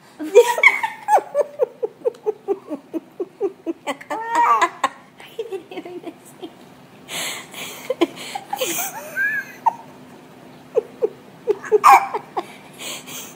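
Laughter in bursts, a baby's among it: a run of quick, rhythmic laugh pulses about a second in, breathy laughs in the middle, and another short run near the end.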